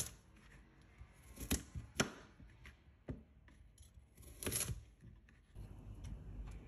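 Kitchen knife chopping peeled carrots into chunks on a plastic cutting board: about five separate sharp cuts, spaced a second or so apart.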